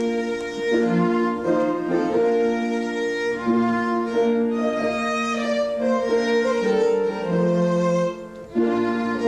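Bridal processional music on bowed strings: a violin over lower strings, playing slow held chords that change about once a second, with a brief lull about eight seconds in.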